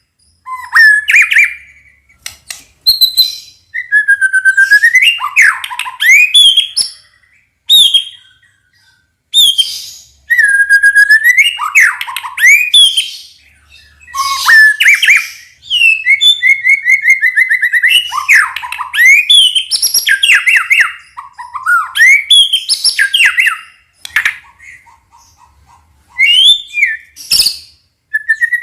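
White-rumped shama singing: a run of loud, varied phrases of whistled glides, rapid trills and harsher notes, separated by short pauses.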